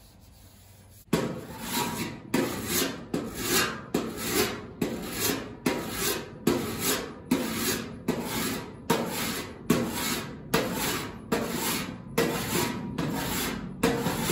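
Hand file rasped over a welded sheet-metal body seam in quick even strokes, about two a second, starting about a second in: hand metal finishing of the weld.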